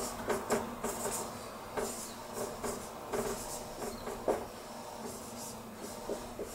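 Marker writing on a whiteboard: irregular short strokes as letters are drawn, growing sparser after about four seconds.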